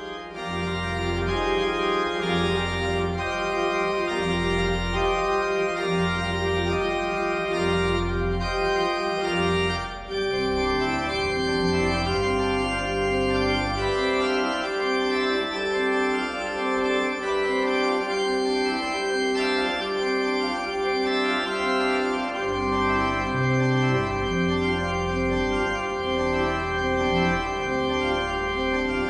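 Organ music: sustained chords over a stepping bass line. The low bass notes drop out for several seconds midway and come back near the end.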